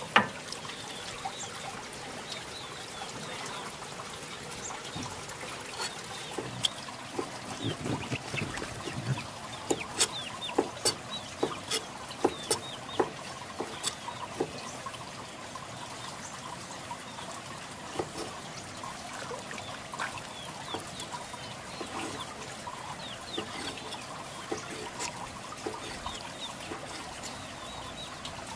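Chickens clucking over a steady trickle of water, with a run of sharp clicks and knocks in the middle.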